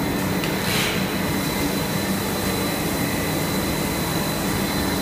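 PET sheet extrusion line running: a steady machine drone with a thin, constant high whine, and a short hiss about a second in.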